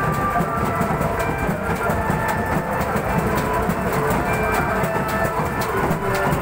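Loud, fast, unbroken drumming on large stick-beaten procession drums, a dense rhythmic clatter of hits.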